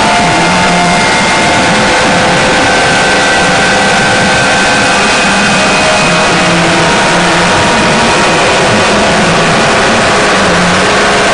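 Harsh noise and drone music: a loud, steady wall of dense noise with faint sustained tones shifting slowly through it.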